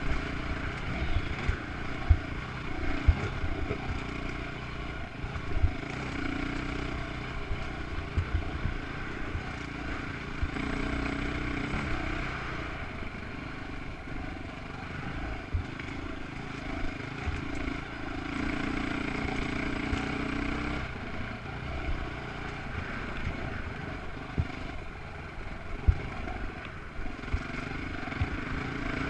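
Dirt bike engine running as it rides along a rough trail, pulling harder in two stretches, one near the middle and one about two-thirds through. Short knocks and rattles come from the bike jolting over rocks.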